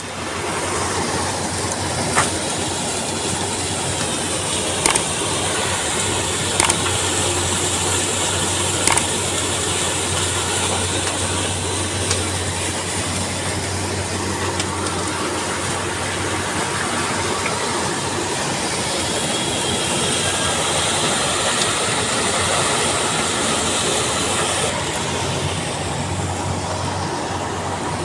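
Sugar mill cane-feeding machinery running: a loud, steady mechanical din with a low hum and a few sharp clanks in the first ten seconds.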